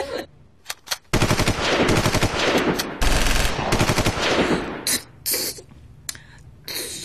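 Rapid machine-gun fire: a dense run of shots starting about a second in and lasting about four seconds, followed by a couple of short separate bursts.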